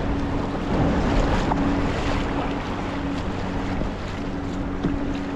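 Bixpy electric kayak motor running with a steady hum, under the rush of water along the kayak's hull and wind on the microphone.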